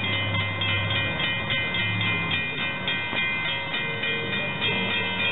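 Railroad grade-crossing warning bell ringing rapidly and steadily, about three strikes a second, over the low hum of an approaching SEPTA electric commuter train.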